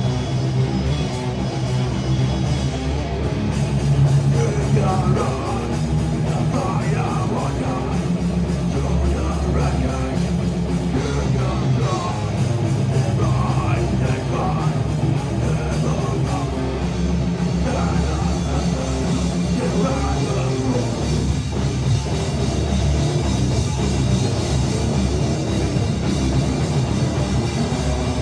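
Heavy rock band playing live and loud: distorted electric guitars, bass and a drum kit, without a break.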